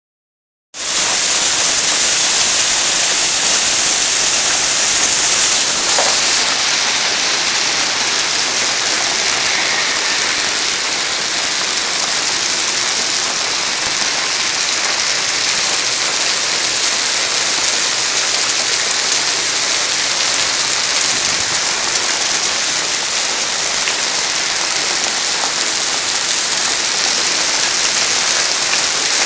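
Hail coming down hard: a dense, steady patter of hailstones striking the ground and surfaces. It starts abruptly under a second in.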